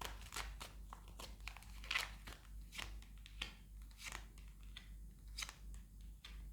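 Tarot cards being handled and shuffled: faint, irregular clicks and rustles, with a few slightly sharper snaps.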